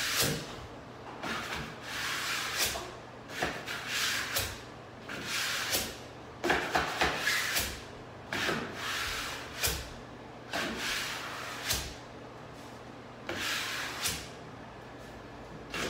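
About a dozen rubbing strokes, each under a second, separated by short pauses: a wet towel wiping over a surface, as when washing wallpaper paste off vinyl wallcovering.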